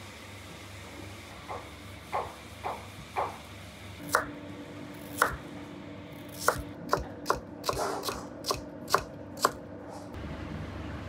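Chef's knife cutting carrot on a plastic cutting board: sharp, irregular knocks of the blade striking the board as the carrot is sliced and diced, coming faster about two thirds of the way in. A few softer taps come first.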